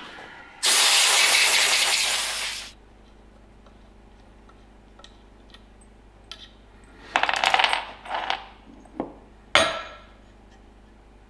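A loud hiss for about two seconds near the start, then steel parts and hand tools clinking and scraping on a workbench, ending with one sharp metallic clink.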